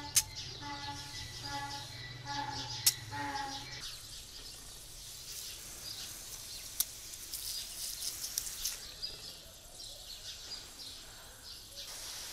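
Fine mist hissing softly from the nozzle of a hand-pumped garden pressure sprayer, with birds chirping. A low humming tone stops about four seconds in, and a few sharp clicks stand out, the loudest near the start and about three seconds in.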